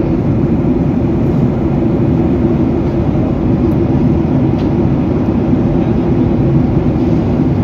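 Airliner cabin noise in flight: the steady, even sound of the engines and rushing air, heard from a window seat inside the cabin, heaviest in the low end.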